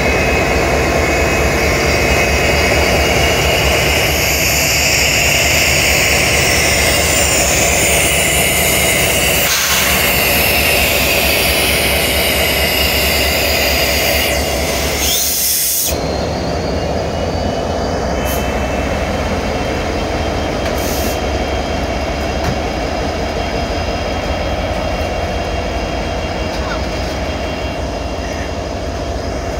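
Freight train locomotives passing close under power, diesel engines running loud and steady. About halfway through, the locomotive sound gives way to freight cars rolling past with a steady wheel-on-rail rumble and faint squeal.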